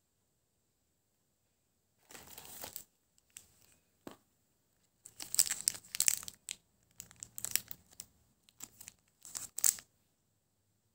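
Crinkling of a Cadbury Crunchie bar's shiny foil wrapper as it is handled, in several short bursts of rustling, the busiest about five to six and a half seconds in.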